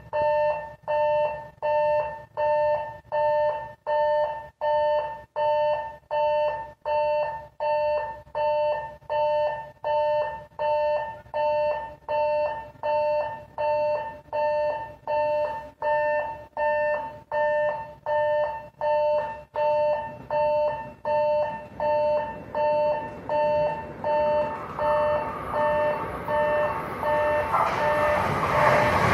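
Electronic level-crossing warning bell ringing a steady two-tone ding a little faster than once a second. In the last few seconds it is joined by the rising rush of an approaching JR West 681/683 series electric limited express.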